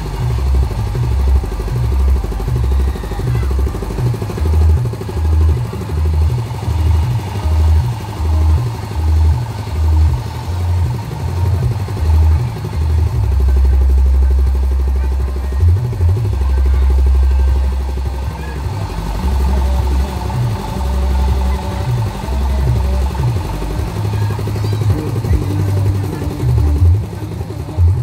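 Loud fairground din: a heavy bass line booming from loudspeakers, stepping between low notes, over a steady hum of machinery and crowd voices.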